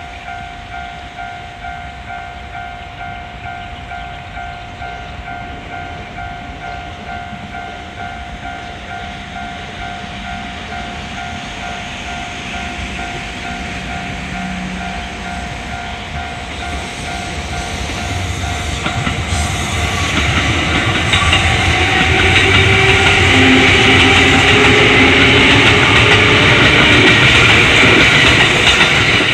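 Japanese level-crossing warning bell ringing its repeated electronic clang. About 18 seconds in, the Kintetsu Ise-Shima Liner express train draws up and passes slowly over the crossing. Its wheels clatter on the rails with a motor hum, growing louder until it drowns out the bell.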